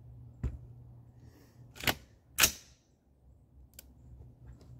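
Three handgun shots: the first a bit weaker, the second and third about half a second apart, the third the loudest. A couple of faint clicks follow near the end.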